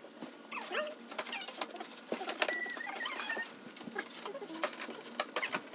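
Rapid clicks and knocks of furniture panels and plastic brackets being handled during assembly, mixed with short high squeaks and chirps.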